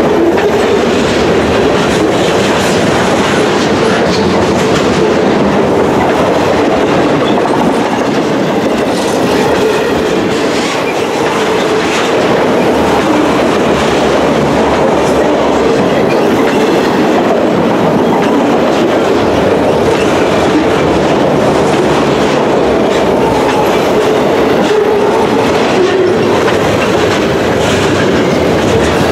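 Freight train cars rolling past at speed: a loud, steady rumble of steel wheels on rail with clickety-clack over the rail joints.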